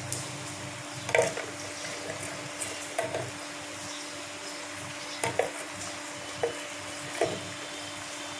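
A handful of short, sharp taps of a steel spoon against the pan and its contents as cardamom powder is added to the dal and jaggery, heard over a steady low hum.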